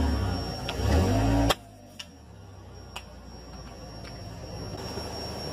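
Car engine running low as the tyre rolls onto a plastic bottle, the pitch rising briefly before a single sharp crack about a second and a half in, where the rumble cuts off. After that only a quiet hiss with two faint ticks about a second apart.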